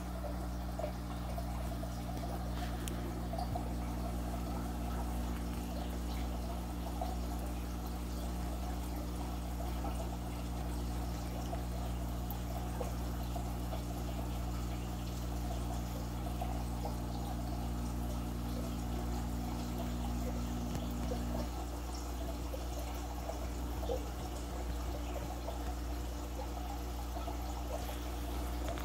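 Aquarium sponge filter bubbling: a steady fine trickle and splash of water over a constant low hum. Some of the hum's tones drop out about two-thirds of the way through.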